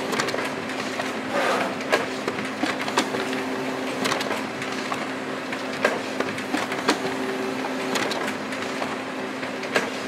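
Sheets of printer paper being handled and folded by hand, with crisp crackles and rustles, over a steady hum.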